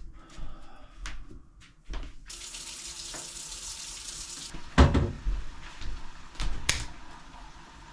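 Kitchen sink tap running for about two seconds, then a loud knock and a few lighter clicks as things are handled on the counter.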